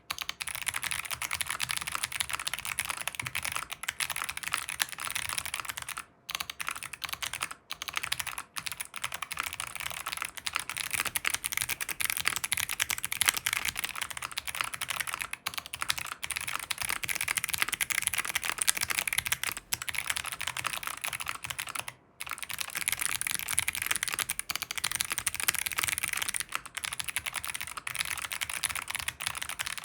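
Fast continuous typing on a mechanical keyboard with Kailh Box Jade clicky switches on a POM plate, each keystroke a crisp click, with a few brief pauses. Recorded on an iPhone 12 Pro Max's microphone, then on an Elgato Wave:3 microphone from about eleven seconds in.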